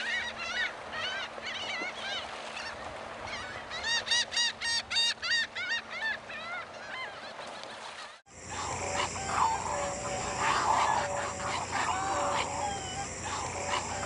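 Flock of laughing gulls calling: a string of arched single calls, then a quick run of rapidly repeated notes a little past the middle of the first half. After a sudden break about eight seconds in, a different flock of seabirds calls with lower, repeated notes over a steady high hiss.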